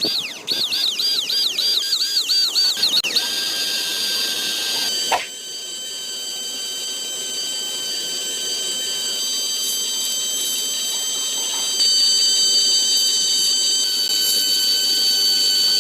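A fast warbling siren-like tone for about three seconds, then a steady high-pitched whine that steps louder about twelve seconds in, with a single click near the five-second mark.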